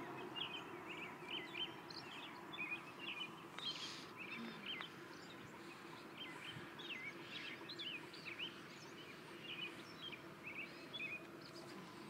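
Birds chirping in a quick, irregular series of short calls, over a faint steady low hum.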